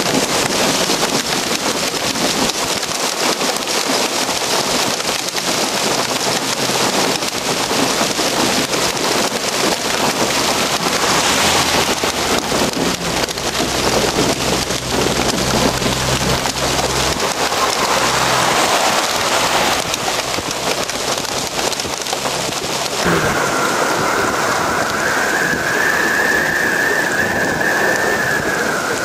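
Hail and heavy rain pelting the road and ground in a loud, dense, steady patter. A low rumble runs through the middle. After a change near the end, the patter thins and a high, slightly wavering whistling tone comes in.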